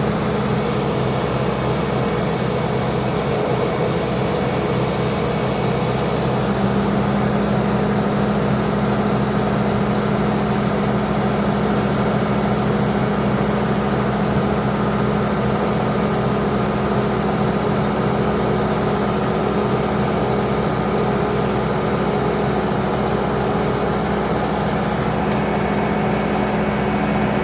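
An engine running steadily with a constant hum; its pitch steps up slightly about six seconds in.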